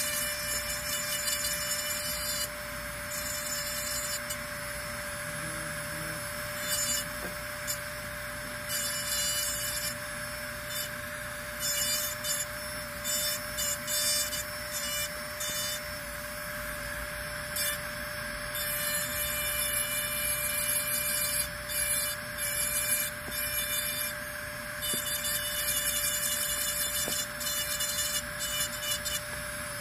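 Dental lab handpiece running with a steady whine, its bur grinding on and off against an upper-molar model as the occlusal grooves and concave lines are cut.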